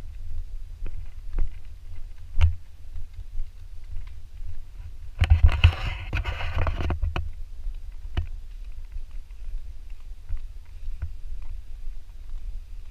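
Footsteps on a dirt forest trail with a low rumble of wind and handling on the camera microphone, and a louder rustle lasting about two seconds from about five seconds in.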